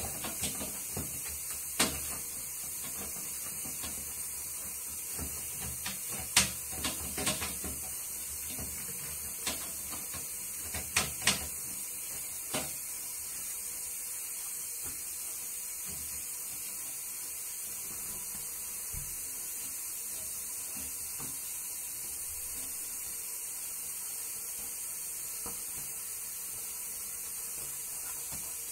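Gloved hands wiping a ceramic toilet with a cloth, with a few sharp knocks in the first half, likely the hands and seat bumping the toilet, over a steady hiss.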